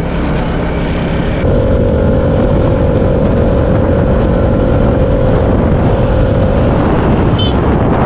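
Piaggio Vespa VXL 150 scooter under way, its single-cylinder engine running under heavy wind rush on the action camera. The sound grows louder about a second and a half in, and a steady hum holds from then until near the end as the scooter pulls along the road.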